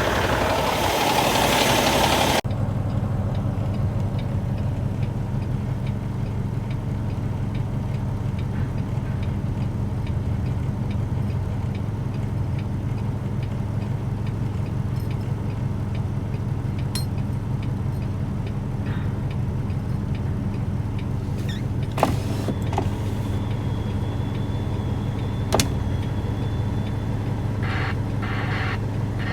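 Truck engine running with a steady low hum, heard from inside the cab. A loud rushing noise in the first couple of seconds cuts off suddenly, and a few sharp clicks come near the end.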